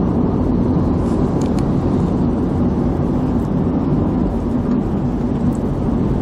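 Car driving along a highway: steady road and engine rumble with a faint even hum.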